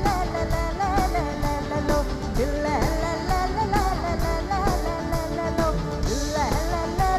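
Live band playing a Malayalam folk song, with a gliding vocal melody over a steady drum beat and guitar.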